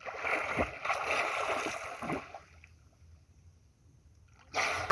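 Water splashing and sloshing for about two seconds, then dying away, with another splash just before the end.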